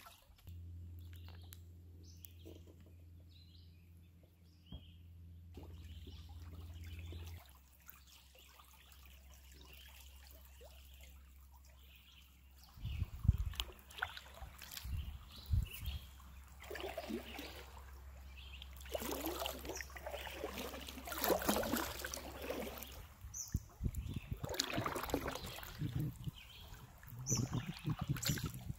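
Kayak paddle splashing in river water, with water dripping and trickling; the irregular splashes get louder from about halfway through. A steady low hum runs underneath and stops near the end.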